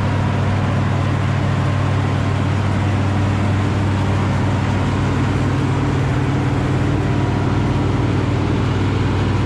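Bizon Rekord Z058 combine harvester's diesel engine running steadily, a loud even hum.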